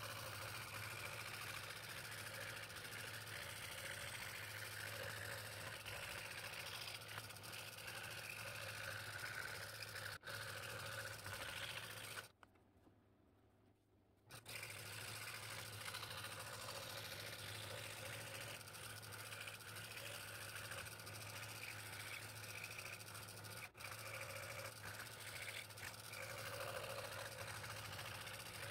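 Scroll saw running steadily, its blade cutting through a stack of layered hardwood boards (mahogany, black limba and ash). The sound stops for about two seconds a little before halfway, then resumes.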